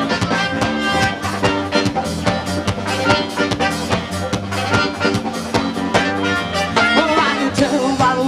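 A live blues band playing, with drums keeping a steady beat under electric guitar; a singer's voice comes in near the end.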